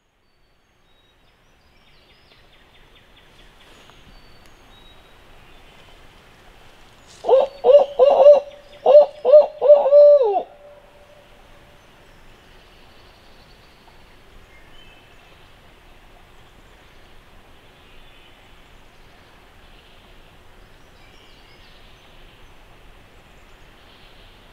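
Loud barred-owl hooting in the 'who cooks for you, who cooks for you-all' pattern, starting about seven seconds in. It comes as two quick phrases of about four and five hoots, the last note drawn out. This is the owl hoot turkey hunters listen for, or make, to set off a gobbler at dawn.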